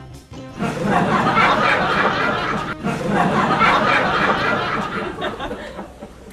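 People laughing, in two long stretches with a brief break about three seconds in, fading out near the end.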